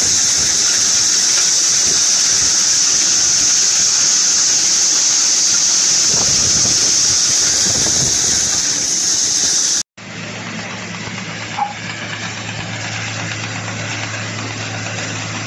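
Multi-crop thresher running steadily while threshing corn, with a loud, steady high hiss. About ten seconds in, the sound cuts to another multi-crop thresher threshing millet, a steady machine hum.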